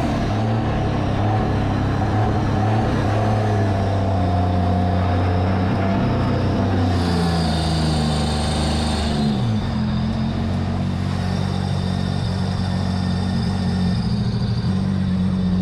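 Mini jet boat's engine running under way on the water, its pitch shifting between about seven and nine seconds in, then settling. The engine is missing intermittently, which the owner thinks is coil-pack related.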